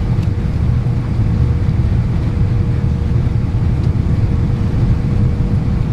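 Steady low rumble inside the cabin of an Airbus A319 airliner: engine and airflow noise, with a faint steady hum above it.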